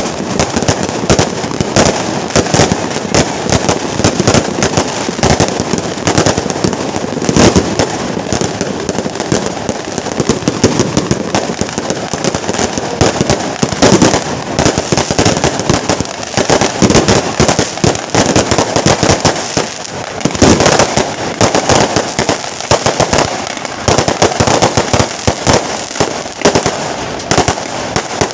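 Strings of firecrackers going off: a dense, unbroken rattle of sharp cracks, loud throughout.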